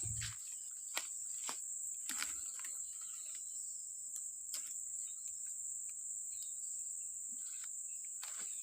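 Insects chirring in a steady high-pitched drone, with scattered light clicks and rustles.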